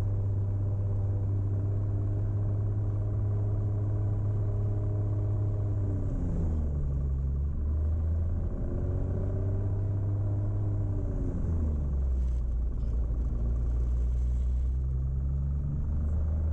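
Piper Cherokee Six's six-cylinder Lycoming engine running at run-up power, heard inside the cabin, while the three-blade propeller is cycled. The engine's pitch drops sharply about six seconds in, climbs back, then drops again and stays low.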